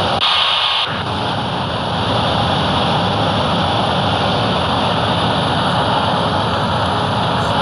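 Jet airliner engines running with a steady, even rush of noise, slightly louder for about the first second.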